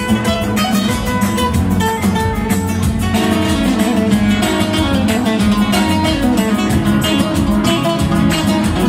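Several nylon-string acoustic guitars playing gypsy rumba flamenco, fast rhythmic strumming with a melody line over it.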